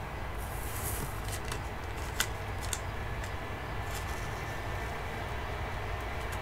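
A Pokémon trading card being handled and turned between fingers: a brief soft rustle near the start, then a few small scattered clicks and ticks, over a steady low background hum.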